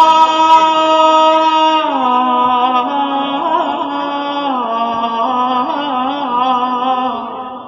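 Man singing one long drawn-out note in Iraqi abudhiya style. It steps down in pitch twice, with melismatic turns in the middle, and fades near the end.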